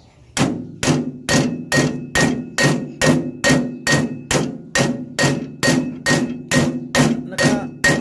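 Hammer blows on steel in a steady rhythm, about two and a half a second, each with a short metallic ring: riveting a new cutting blade section onto a rice harvester's cutter bar, with a nail serving as the rivet.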